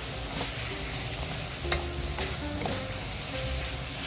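Eggplant, meat and vegetables sizzling in a hot pan in doubanjiang and oyster sauce while being stirred, with a steady frying hiss and a few sharp knocks of the utensil against the pan, the loudest about a second and a half in.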